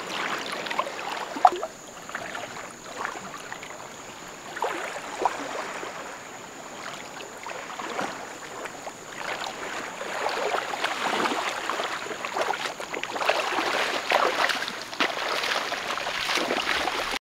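Shallow seawater splashing and sloshing as a person works his hands in it and then wades through it step by step. The splashing gets busier and louder in the last several seconds.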